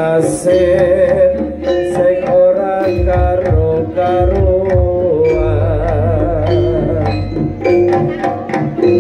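Live jaranan music from a Javanese percussion ensemble: repeated drum strokes under a sustained, wavering melodic line, with deep low tones swelling in about three seconds in and again past the middle.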